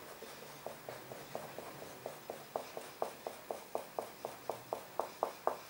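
Pentel FabricFun pastel dye stick scratching across a fabric pillowcase in quick short colouring strokes, about four a second, a little louder from about halfway through.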